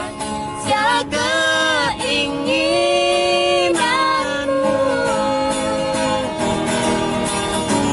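Music in a break between verses of a song: a guitar accompaniment under a melody line that slides between notes.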